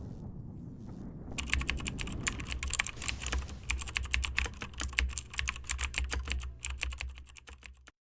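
Fast typing on a mechanical keyboard: a dense, irregular run of key clicks, each with a low thud under it, starting about a second and a half in and stopping abruptly near the end. A low steady rumble comes before it.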